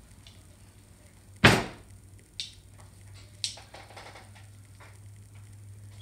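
Metal end bell of a key machine's electric motor being fitted back onto its housing by hand: one sharp clunk about a second and a half in, then two lighter knocks about a second apart, followed by faint rattling.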